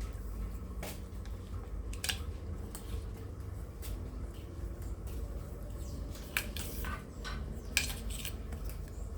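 Scattered light clinks and taps, several over a few seconds and loudest about six and a half and eight seconds in, over a steady low hum.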